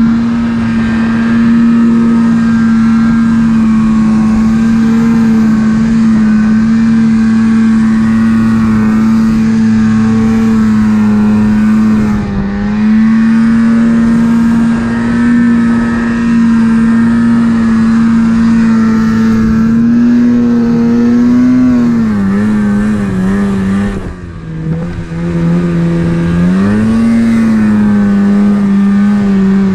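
Turbocharged snowmobile engine running hard at a steady high pitch while the sled ploughs through deep powder. The engine speed dips briefly about twelve seconds in, then wavers up and down with another short dip in the last third.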